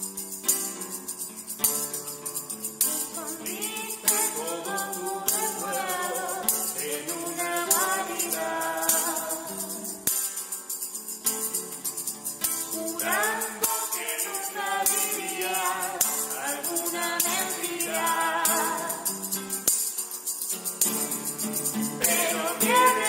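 Live acoustic music: a nylon-string classical guitar played with singing, over a steady beat from hand percussion. The voice comes in a few seconds in and breaks off briefly around the middle.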